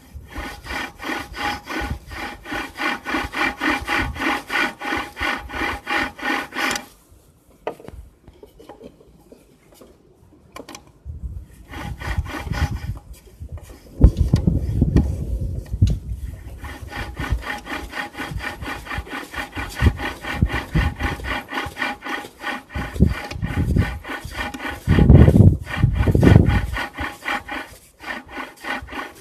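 Subaru Vivio mechanical supercharger making a rapid, rhythmic rasping, grinding noise, a sign the owner takes for a failing bearing. The noise stops for a few seconds partway through, then resumes with heavy low rumbles.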